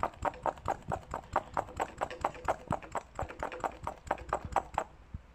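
Hand-operated vacuum brake bleeder pump being squeezed rapidly, about four or five clicking strokes a second, drawing old brake fluid out through a motorcycle rear brake caliper's bleed nipple; the pumping stops near the end.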